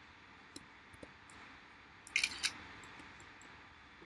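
Clicks from someone working at a computer: a few faint single clicks, then a quick group of three sharper clicks about two seconds in, over a low steady hiss.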